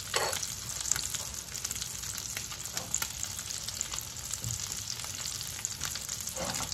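Wild-game burger patties searing in hot olive oil in a cast-iron skillet: a steady sizzle with many small pops and crackles.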